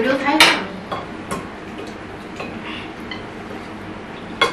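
Chopsticks and spoons clicking and clinking against plates and a baking tray while eating: a handful of sharp, spaced-out taps, the loudest about half a second in and another sharp one near the end. A short rising voice sound at the very start.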